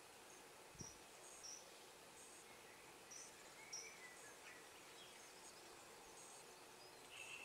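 Near silence: quiet outdoor ambience with faint, scattered high-pitched chirps of distant small birds.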